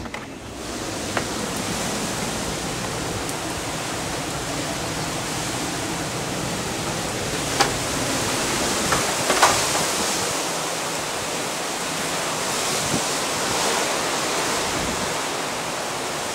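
Hurricane wind and heavy rain: a steady rushing noise, with a few brief knocks about a second in and again after seven and nine seconds.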